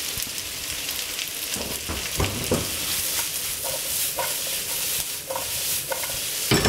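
Diced carrots, celery root and onions sizzling in caramelised sugar and butter in a frying pan, with a spatula stirring and the pan being tossed. A few short knocks about two seconds in, and the loudest knock near the end.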